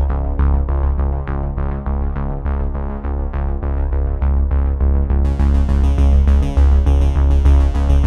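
Background electronic music with a steady synthesizer beat and a strong bass pulse; a crisp high layer of ticks joins about five seconds in.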